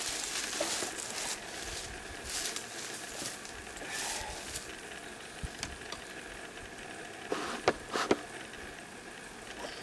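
Faint steady hum of honey bees at the open hive, with light handling clicks and two sharp knocks close together about eight seconds in.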